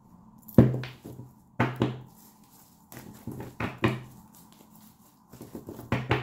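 A deck of tarot cards being shuffled by hand, with a series of sharp knocks and clatters as the deck strikes the table, the loudest about half a second in.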